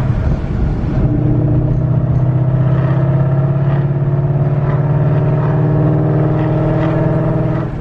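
Procharger-supercharged Coyote 5.0 V8 in a Mustang running at a steady drone under way, with little change in pitch.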